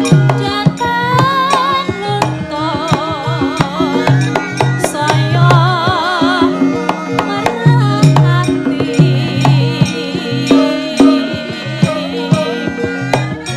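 Javanese gamelan music: sustained metallophone tones under frequent hand-drum strokes, with a high melody line wavering in a strong vibrato.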